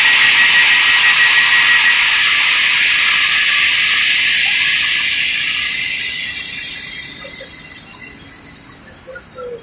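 Air compressor and air system of a CFR Class 40 (Ea) electric locomotive running down: a loud hiss with a thin whistle that fades out about two seconds in, the hiss then dying away gradually.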